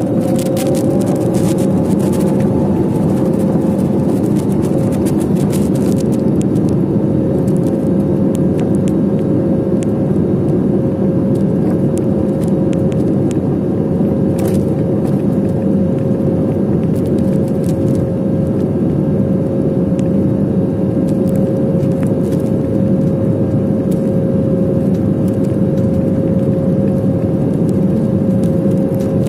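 Airbus A320-family airliner's jet engines at takeoff thrust, heard from inside the cabin during the takeoff roll: a loud, steady rumble with a steady whine. A second whine rises over the first few seconds as the engines spool up, with light clicks and rattles in the first several seconds.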